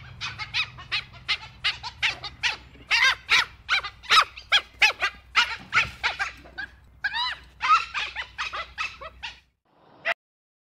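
Dhole (Asian wild dog) giving a rapid run of short, high squeaky chirps, about four or five a second, each rising and falling in pitch. The run stops a little before the end, and one last chirp follows.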